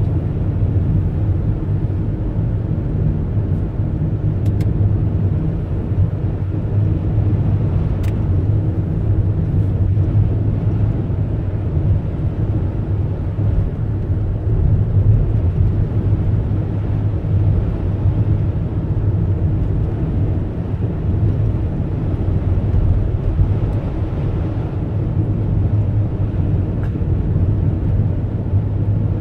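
Steady engine and road noise of a car driving along, heard from inside the cabin, with an even low rumble.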